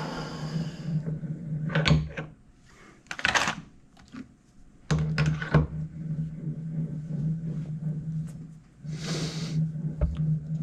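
A metal lathe's running whine dies away in the first second. Then come scattered metal clicks and clunks and two short rasps as tooling is handled and reset at the lathe, with a low hum that cuts out for a few seconds and comes back.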